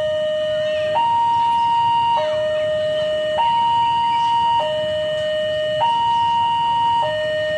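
Railway level-crossing warning alarm sounding a steady two-tone hi-lo signal, a lower and a higher tone swapping about every second and a quarter, warning that a train is approaching.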